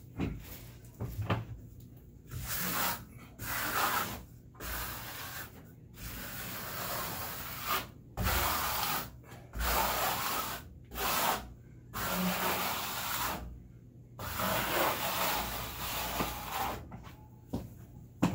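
A trowel blade scraping and spreading microcement base coat over the mesh on a wall, in about ten scraping strokes, each roughly a second long, with short pauses between them.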